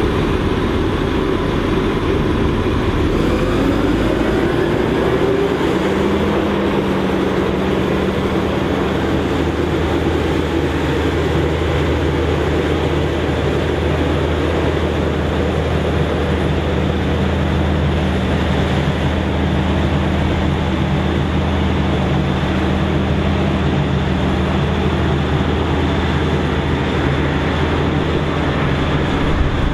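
John Deere self-propelled forage harvester chopping maize: the big diesel engine and chopping gear run steadily under load. A pitch rises over a couple of seconds, about four seconds in, then holds as a steady low hum.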